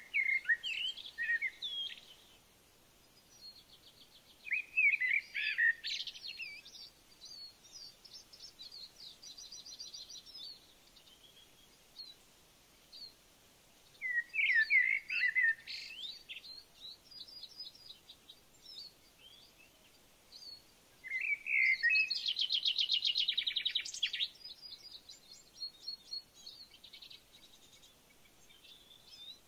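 A songbird singing in four loud phrases of quick, varied whistled notes, some running into a fast trill of rapidly repeated notes, with softer chirps between the phrases.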